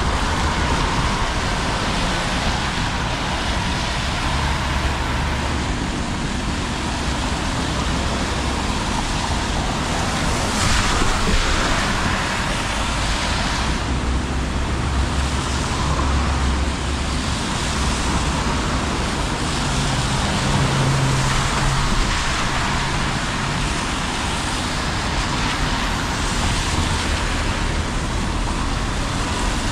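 Road traffic on a rain-wet city street: cars and city buses passing, their tyres hissing on the wet road over engine noise. The noise is steady, with louder swells as nearer vehicles go by, one about ten seconds in.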